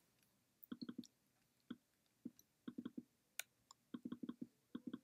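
Faint computer mouse clicks, single or in quick runs of two to four, as a map on screen is zoomed in step by step.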